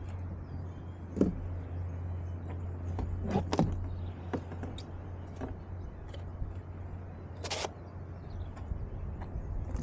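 A few scattered short clicks and knocks over a steady low hum.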